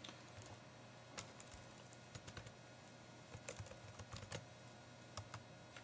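Faint, irregular key clicks from a computer keyboard being typed on, coming in small groups of a few strokes with short pauses between.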